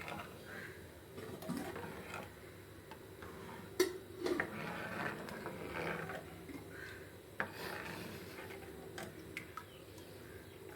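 A spoon scraping and rubbing around a pan as a milky mixture is stirred, with a couple of sharp clinks of utensil on pan, about four seconds in and again about seven seconds in.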